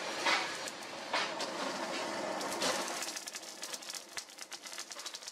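Charcoal forge fire under a strong draught, a steady rushing with crackling and popping coals. The rush swells a few times, then dies down in the last couple of seconds to a run of quick crackles.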